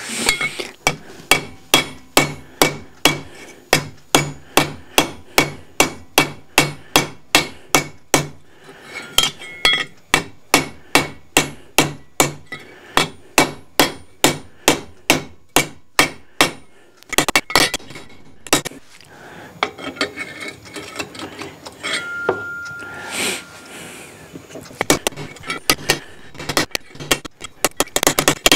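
Hammer striking a steel tube laid on a steel block, steady blows about two a second, squeezing the tube's end down toward a 27 mm diameter. The blows stop for several seconds past the middle and resume for a few strikes near the end.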